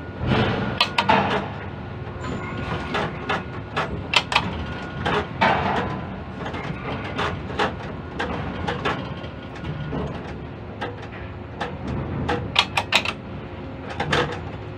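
Quay crane machinery running, heard from inside the operator's cab: a steady low hum with many sharp, irregular clicks and knocks.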